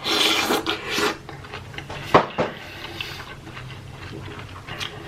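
Close-miked eating and food-handling noises: a scratchy, rustling stretch for about the first second, a sharp click a little over two seconds in, then scattered small ticks and rustles.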